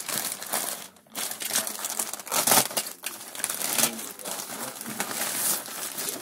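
Plastic courier mailer bag crinkling and rustling as hands handle it and pull it open, loudest about two and a half seconds in.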